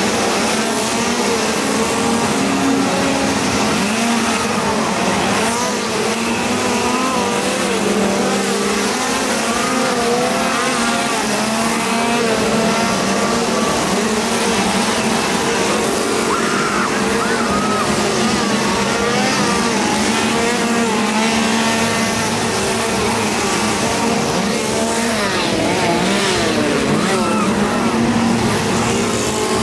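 Several gasoline chainsaws running and revving at once, their engine pitch rising and falling, with a crowd's voices mixed in.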